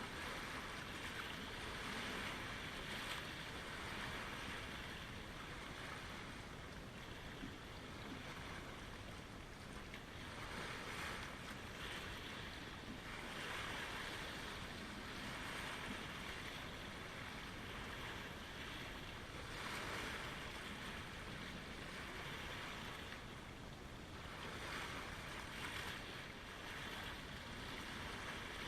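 Small lake waves lapping at the shoreline: a steady wash that swells and ebbs every few seconds.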